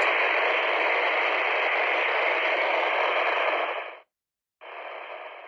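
Retevis Ailunce H1 handheld radio's speaker hissing with its squelch open. It is receiving a very weak unmodulated test carrier of about −112.5 dBm on 144.600 MHz, right at the threshold where its squelch breaks. The hiss cuts off about four seconds in and comes back quieter half a second later.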